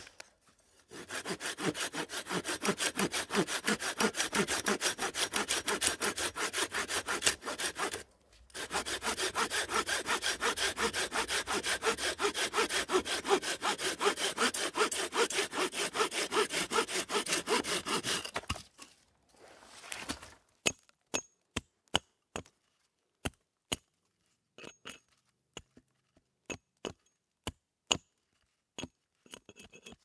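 Silky Gomboy 240 folding saw cutting through a log in quick, even back-and-forth strokes, with a short pause about eight seconds in. The sawing stops about eighteen seconds in, and a series of separate sharp knocks follows.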